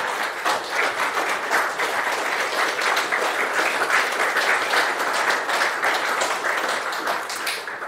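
Audience applauding: many people clapping steadily, fading out near the end.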